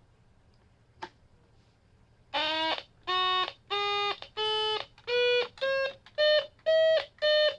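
Homemade IC organ from an electronics kit, built on a 4011 quad NAND gate chip, playing a scale through the kit's small speaker. After a faint click about a second in, it sounds separate buzzy notes, one per key press, that climb in pitch and turn back down near the end.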